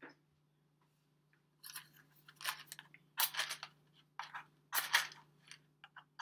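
Wooden match struck again and again against the striking strip on the side of a matchbox: a series of short rasping scrapes starting about a second and a half in, some longer than others.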